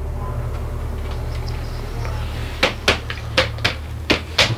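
Shoe-rack poles being pushed into the holes of a plastic side panel: a run of six or seven sharp clicks and knocks in the second half, over a steady low hum.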